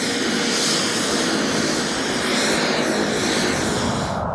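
MQ-9 Reaper's turboprop engine running as the drone taxis: a steady, high rushing whine with a faint hum beneath, cutting off just before the end.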